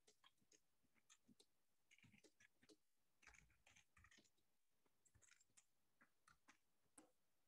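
Near silence with faint, irregular clicks and taps, typical of someone typing on a computer keyboard.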